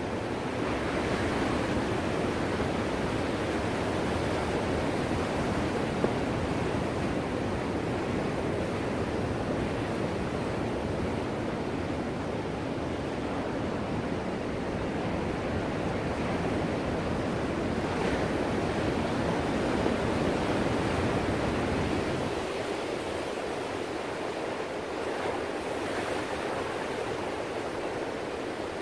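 Ocean surf: waves breaking and washing over one another in a steady rush, swelling a little and easing, with the deep low rumble falling away about three-quarters of the way through.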